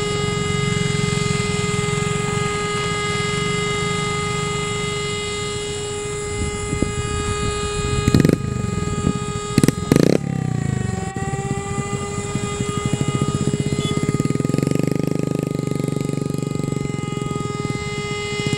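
CASA C-212 Aviocar twin turboprops at takeoff power, a steady whining drone made of many pitched tones over a low rumble. A few loud knocks come just before the middle, then the tones slide down in pitch and settle as the aircraft climbs away.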